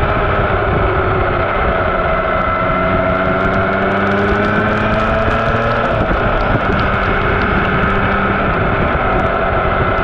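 MV Agusta Turismo Veloce Lusso's three-cylinder engine running under way at fairly steady revs, its pitch drifting slightly down and back up, with wind noise on the microphone.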